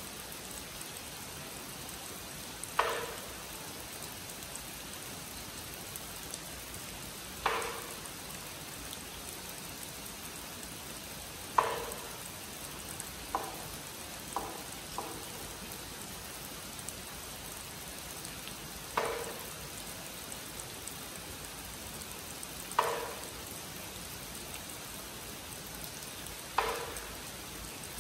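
Steady rain falling on a pond and foliage. A wooden clapper is struck sharply about nine times, mostly about four seconds apart with three quicker strikes near the middle, each with a short ring: the signal calling the monks to zazen.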